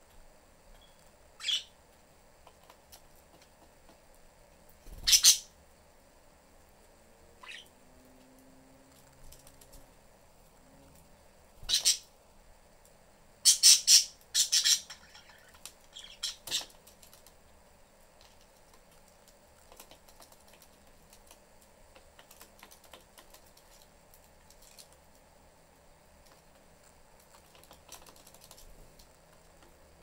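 Pet budgies giving short, sharp squawks, scattered through the first half, with a quick cluster of three near the middle. Between them comes faint light clicking, like beaks cracking seed.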